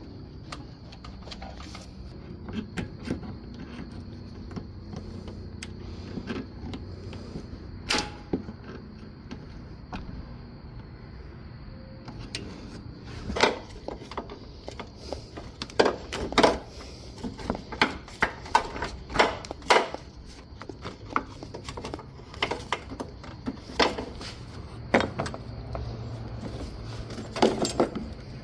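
Irregular clicks and knocks of hand tools and parts being handled during car radiator work, over a steady low hum. The sharpest knocks come in the second half.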